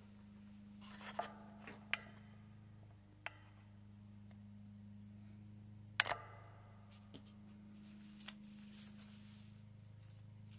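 Scattered sharp clicks and taps from small objects being handled at a table, the loudest about six seconds in, over a steady low hum.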